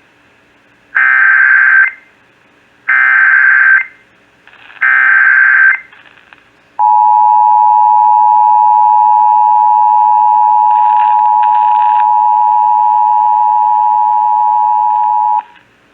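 Emergency Alert System activation on AM radio. Three short bursts of warbling SAME digital header data, about a second each and encoding a flash flood warning, are followed by the steady two-tone EAS attention signal, held for about eight and a half seconds before it cuts off.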